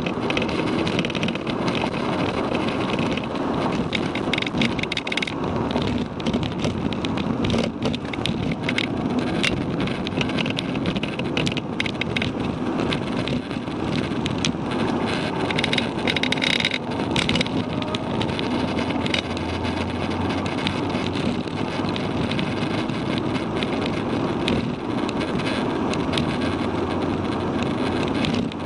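Cabin noise inside an APR Stage 1–tuned Mk6 Volkswagen Golf GTI at track speed: the turbocharged 2.0-litre four-cylinder engine running under load over steady tyre and road noise. Small clicks and rattles are scattered throughout.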